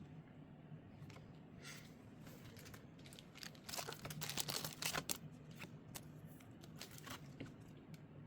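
Faint rustling and light clicks of trading cards and pack wrapping being handled, busiest about halfway through.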